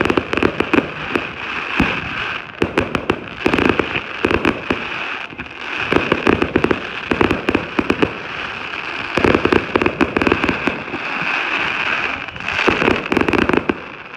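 Fireworks crackling in repeated bursts of rapid sharp pops, about five clusters, over a steady hiss.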